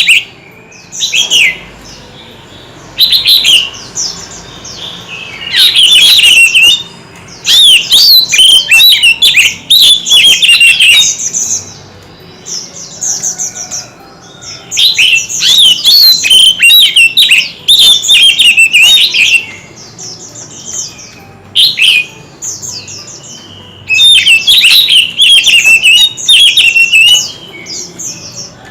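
White-rumped shama singing loudly: bursts of fast, varied whistled phrases with rapid up-and-down glides, broken by short pauses, the longest runs lasting about five seconds.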